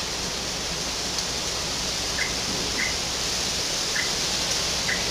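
Steady hiss of background noise on the recording, with a few faint short chirps spaced about a second apart.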